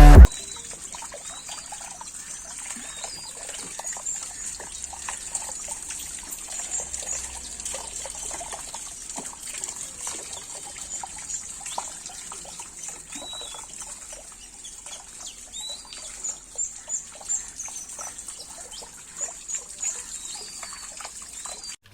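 Water trickling steadily, with a high-pitched hiss and a few faint chirps over it.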